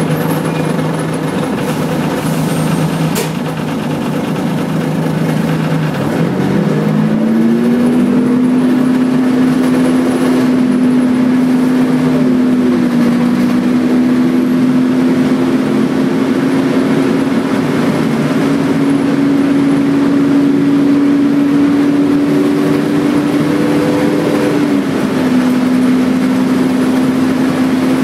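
Volvo B10BLE bus's diesel engine heard from inside the cabin: a steady low note for about six seconds, then a rise in pitch as the bus pulls away, settling into a steady drone with small steps up. Near the end the pitch drops a little.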